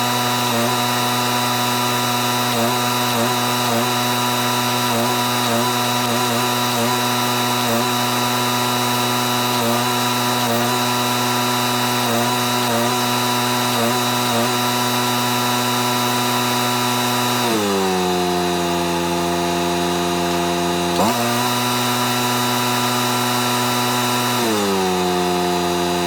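Engine-driven welding machine running steadily at welding speed. It drops to a lower idle about 17 seconds in, comes back up briefly about 21 seconds in, then settles to idle again near the end, as welding stops and starts.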